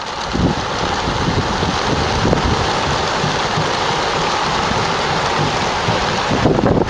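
Massed wingbeats of thousands of racing pigeons taking off together: a dense, steady rushing noise like heavy rain, over a low rumble of wind on the microphone.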